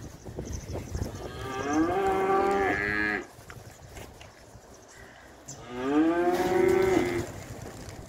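Beef cattle mooing: two long moos, the first about a second in and the second a few seconds later, each rising in pitch and then holding before breaking off.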